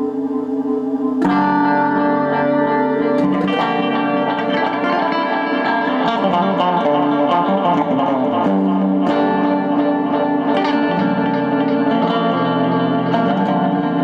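Instrumental music led by a plucked guitar, heavy with reverb and echo over sustained held tones; a fuller, busier section comes in sharply about a second in.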